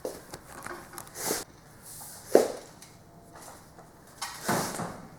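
A few scattered handling knocks and scrapes, with the sharpest knock about two and a half seconds in.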